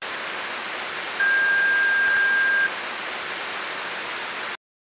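TV static hiss, an outro sound effect, with a steady high beep over it for about a second and a half starting about a second in. The hiss cuts off suddenly near the end.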